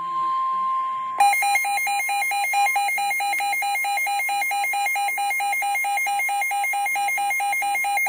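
Midland NOAA weather radio going off for a severe thunderstorm warning: the steady single-pitch NOAA Weather Radio warning tone for about the first second, then the radio's own shrill, rapidly pulsing alert alarm.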